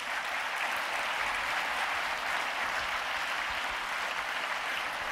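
Audience applauding steadily in a large hall at the end of a talk.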